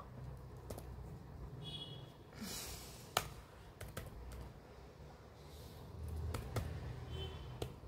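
Laptop keyboard keys clicking as a search term is typed: a handful of separate, spaced-out keystrokes, faint, with no speech.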